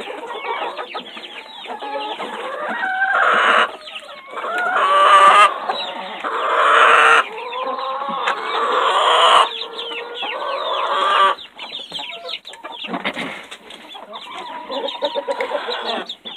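A crowded flock of chickens, hens and roosters, clucking and squawking densely. Several louder, drawn-out calls come between about three and eleven seconds in.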